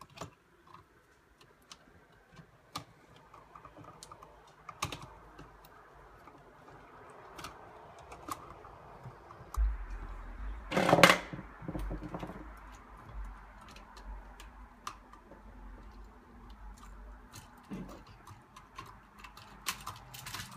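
Scattered small clicks and taps of a screwdriver and wires against a GFCI receptacle and its metal electrical box as the terminal screws are undone and the wires released. One louder brief bump about halfway through.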